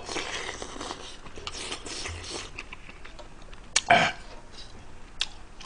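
A man chewing a mouthful of spicy stew, with soft mouth noises and a few small clicks, and a single short burp about four seconds in, which is the loudest sound.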